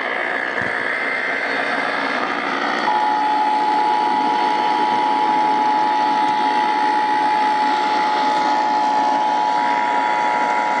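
Emergency Alert System attention signal: a steady two-tone alert (853 and 960 Hz together) comes in about three seconds in and holds, over heavy radio static. Before it, a warbling data burst of the SAME alert header.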